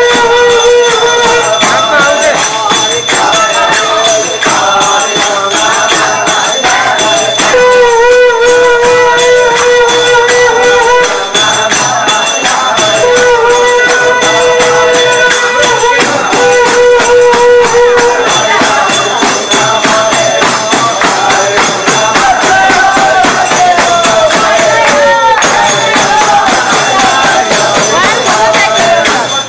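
Nepali panche baja band playing: a reedy shawm (sahanai) melody, held and wavering, over drums and fast, constant jangling of small clashing cymbals (jhyali).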